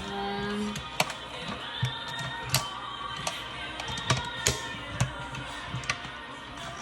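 Background music with held tones, with about half a dozen sharp clicks or taps at irregular intervals.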